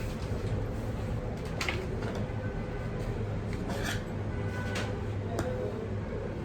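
A few short, sharp snips and rustles of fabric and paper being handled and cut with scissors, over a steady low background hum.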